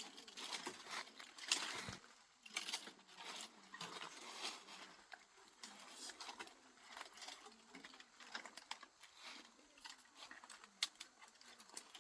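Light rain pattering: many small irregular drops tapping over a soft hiss, a little busier in the first few seconds.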